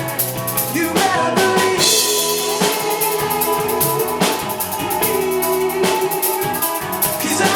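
Live rock band playing an instrumental passage: a drum kit keeps a steady beat with cymbals, under sustained effects-laden guitar and bass notes that slide in pitch about a second in and again near the end.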